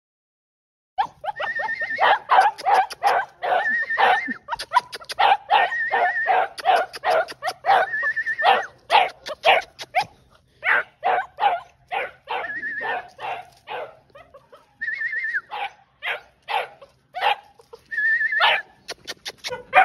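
Young hound puppy giving voice on a wild boar scent trail: rapid short yelps and barks, some drawn out into higher held cries. The cries begin about a second in.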